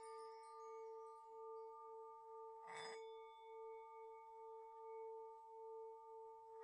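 Faint, sustained bell-like ringing that wavers slowly in loudness, struck again about three seconds in.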